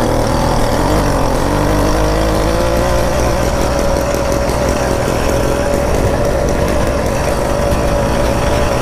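Two-stroke engine of a motorized bicycle running steadily under the rider, with a second motorized bicycle's engine nearby rising in pitch about two seconds in.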